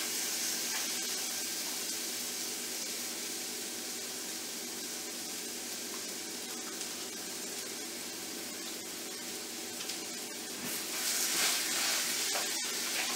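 Ground-beef hamburger patties sizzling in a hot grill pan: a steady, even hiss that grows louder again near the end as another patty goes onto the pan.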